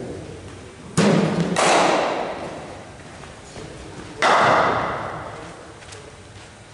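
Sharp knocks of cricket balls being struck and landing, each followed by a long echo in a large hall: two about half a second apart about a second in, and another a little past four seconds.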